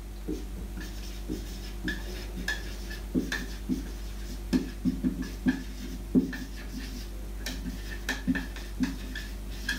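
Dry-erase marker writing on a whiteboard: a quick, irregular run of short squeaks and taps as the letters of a word are drawn.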